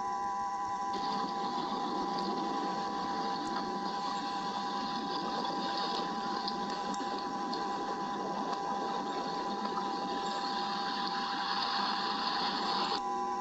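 Rain hissing on a nest camera's microphone during a thunderstorm, starting about a second in and cutting off sharply near the end, over a steady high electronic whine from the camera.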